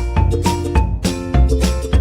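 Upbeat background music with a steady beat, strong bass and bright pitched notes.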